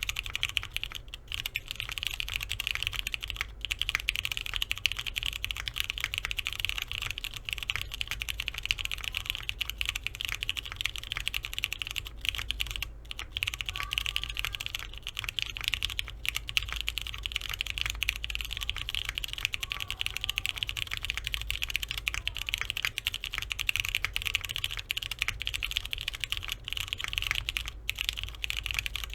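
Continuous typing on a Neo65 gasket-mount keyboard with a polypropylene plate and lubed Cherry MX Brown Hyperglide tactile switches under doubleshot keycaps: a steady, rapid stream of key clacks.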